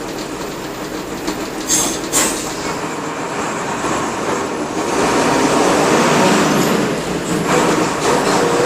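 Mercedes-Benz OF-1721 bus's OM-366LA turbo-diesel straight-six running while the bus is under way. Two sharp clicks come about two seconds in, and the sound grows louder about halfway through.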